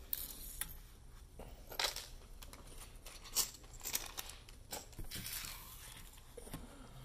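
Plastic packaging crinkling and rustling in short, irregular bursts, with a few light clicks of game pieces being handled on a table.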